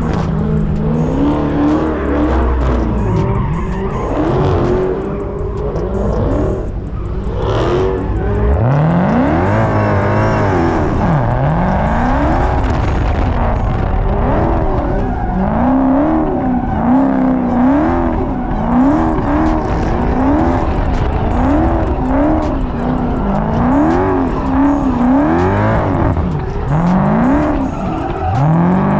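A car engine revved hard again and again, its pitch rising and falling in quick repeated sweeps, with tyres squealing as the car spins donuts and burnouts.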